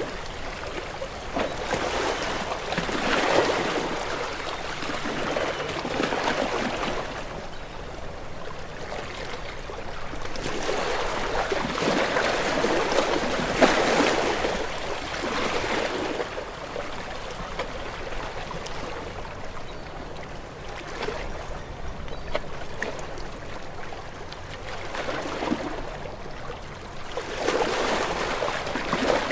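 Sea waves washing in and drawing back, the noise swelling and easing every few seconds, with a few stronger surges.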